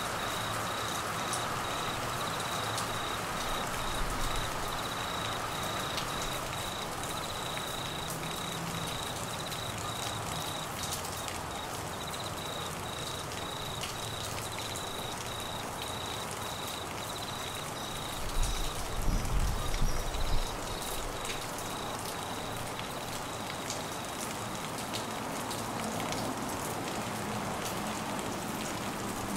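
Steady heavy rain falling on trees, grass and floodwater, with crickets chirping in a fast pulsing trill for most of it. A brief low rumble comes about two-thirds of the way through.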